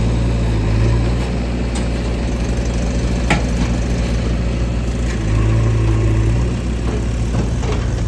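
Diesel engine of heavy earth-moving machinery running steadily at low revs, swelling louder twice, near the start and about five seconds in. A single sharp knock about three seconds in.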